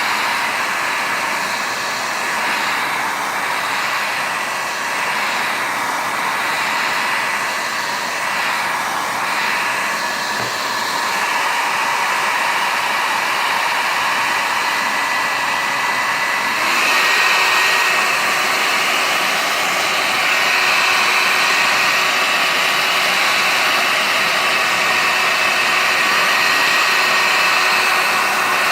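Hair dryer blowing steadily, a whooshing rush of air with a thin motor whine; about seventeen seconds in it steps up slightly louder and higher, as at a faster setting.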